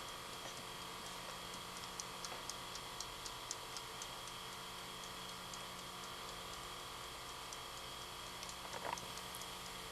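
Kitchen timer ticking: light, quick ticks, thickest about two to four seconds in and coming back more sparsely later. A brief louder sound near the end.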